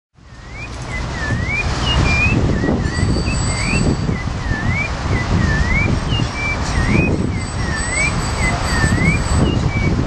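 A sabiá singing a string of short whistled notes, mostly rising slurs about once a second, over a louder steady low rumble.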